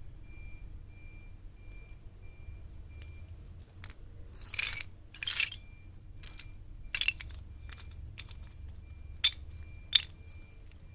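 Wood fire in a homemade metal fire pit: irregular crackles and crunching snaps, with two sharp pops near the end.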